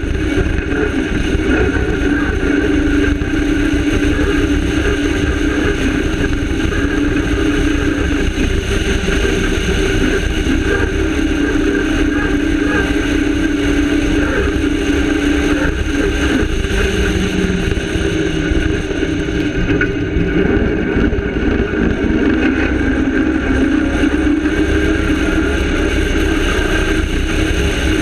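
Cross-country rally car's engine running hard under load, with rumble of the tyres on a dirt track. About two-thirds through, the engine note drops, then climbs again as the car picks up speed.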